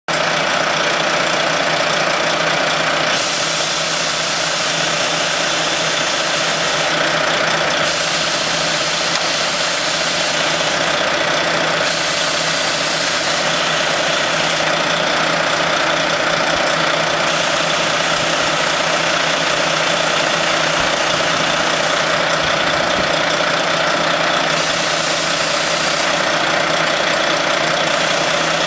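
Volvo FM truck's diesel engine idling steadily, with an even, unchanging running note.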